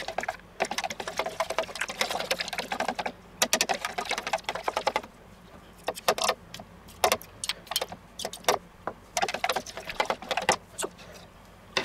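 A metal spoon stirring and whisking cream sauce in a plastic measuring jug, rapid clicking and scraping against the jug's sides in spurts with short pauses.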